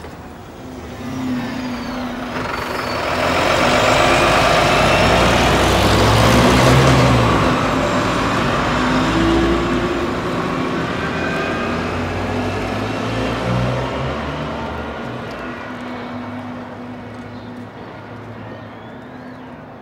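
A lorry passing and driving off: its diesel engine and tyre noise swell over the first few seconds, are loudest in the middle, then fade slowly away.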